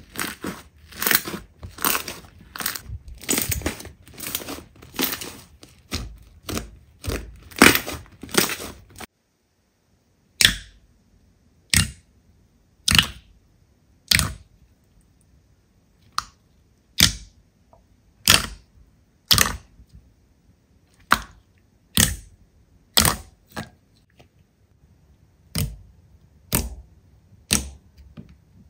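Slime being pressed and squeezed by hand, giving sharp crackling pops about twice a second. About nine seconds in it cuts to a quieter take with single crisp pops roughly once a second.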